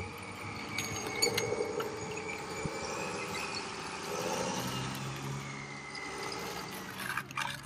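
An engine running steadily, with a faint high whine that rises and falls gently over a few seconds.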